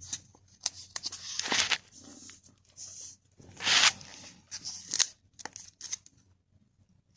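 Close-up crinkling, tearing and crunching in short bursts and sharp clicks, as food and its wrapping are handled and bitten, with the loudest bursts about one and a half and four seconds in, then a short quiet stretch near the end.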